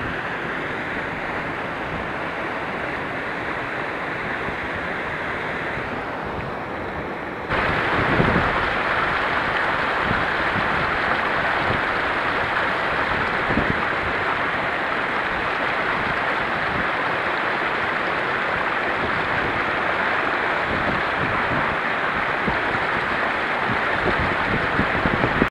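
Steady rushing of a rocky mountain stream. About seven and a half seconds in it jumps louder and brighter, the water of a small waterfall and cascade close by.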